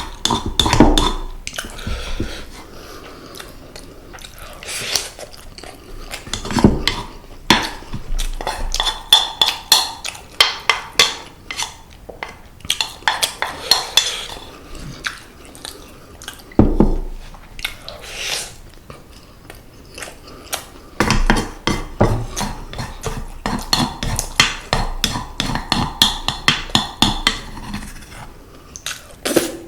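Close-miked eating: utensils clinking and knocking against dishes, with chewing of seasoned semi-dried pollock and rice. Clusters of sharp clicks come throughout, with a quieter stretch of chewing a few seconds in.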